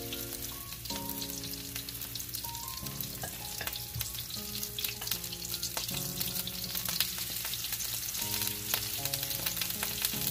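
Cauliflower fritters sizzling and crackling in hot oil in a cast iron skillet, with many small spits throughout. Soft background music of held chords, changing every second or two, plays underneath.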